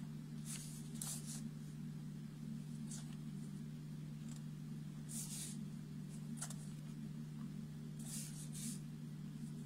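Paper pages of a booklet being turned, heard as a series of short, soft paper rustles over a steady low hum.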